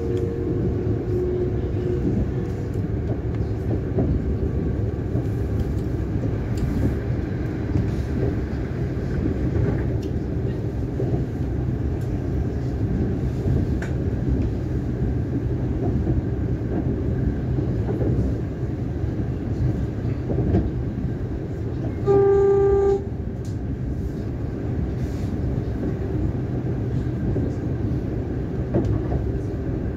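Siemens Nexas electric train running, heard from inside a carriage: a steady rumble of the wheels on the track. A short single-pitched horn toot sounds about 22 seconds in.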